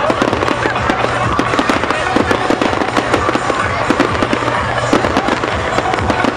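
Aerial fireworks bursting in a dense, continuous string of sharp pops and bangs, many each second, with no break.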